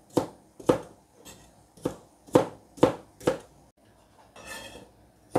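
A broad kitchen knife chopping asparagus stalks on a cutting board, each stroke a sharp knock on the board. There are about six chops at an uneven pace, a softer brushing noise about four and a half seconds in, then one more chop at the very end.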